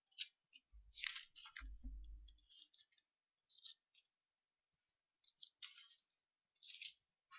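Faint rustling of Bible pages being turned, in short scattered bursts with a few small clicks, and a couple of low bumps from handling at the lectern about a second in.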